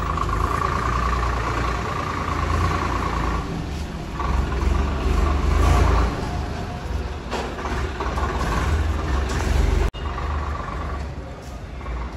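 Tractor diesel engine running as the tractor pulls away down a lane, its low engine note swelling louder a few times as it drives off.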